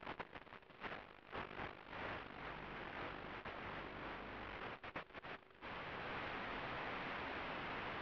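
Hiss from an analog FPV video receiver's audio channel, recorded on the DVR. It flickers with brief dropouts as the radio signal varies, then turns to steady static about five and a half seconds in as the video link breaks up.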